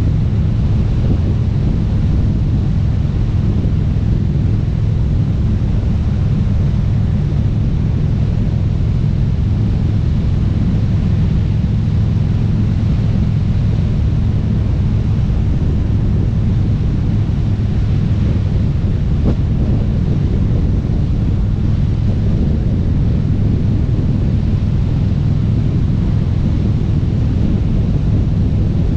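Harley-Davidson V-twin engine running at a steady cruising speed, with heavy wind buffeting on the microphone.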